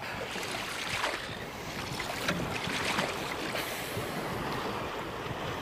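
Water splashing and sloshing beside a boat as a hooked barramundi thrashes at the surface, with wind buffeting the microphone.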